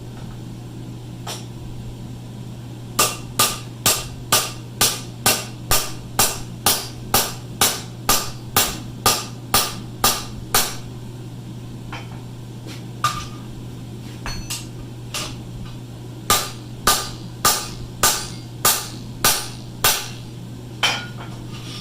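Blacksmith's hammer striking hot steel, each blow ringing briefly. There is a steady run of about twenty blows at roughly two and a half a second, a few lighter single taps, then a second run of about eight blows.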